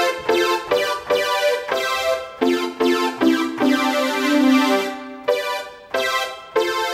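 CSound software synthesizer on an Intel Edison board, played from a MIDI keyboard, sounding polyphonic chords through a small portable speaker: a run of short repeated chords, one chord held for about a second and a half in the middle, then more short chords.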